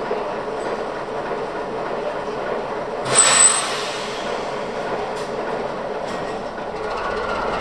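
Vulcan diesel railcar Rm 51 running at the platform, a steady drone. About three seconds in comes a brief loud hiss with a high squeal, and the sound grows a little louder near the end.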